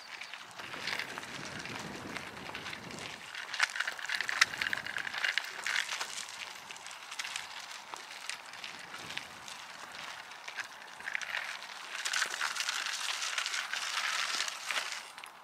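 Footsteps crunching on a gritty trail, an irregular run of small crackling clicks that swells and fades as the walking goes on.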